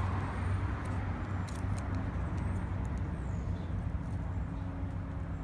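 Steady low outdoor rumble with a few faint clicks about a second and a half in, as electrical tape and bottle rockets are handled.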